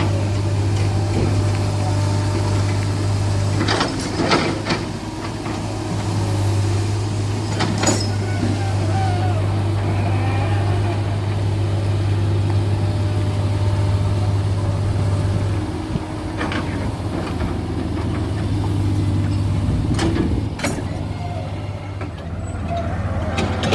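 A heavy diesel engine runs steadily with a deep, low drone. It is broken a few times by short sharp hisses or clanks.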